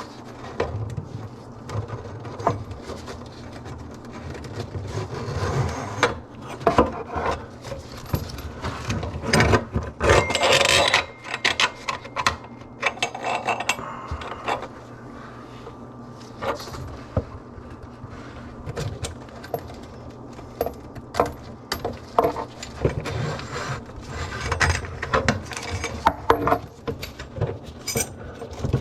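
Irregular clicks, knocks and rattles of tools and parts being handled during work on a kitchen sink drain, with a brief rushing noise about ten seconds in.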